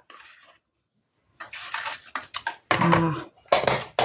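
Hands rummaging through craft storage boxes of paper labels and tickets: a lid lifted, loose paper pieces shuffled, with uneven rustling and light knocks. There is a silent gap about a second in.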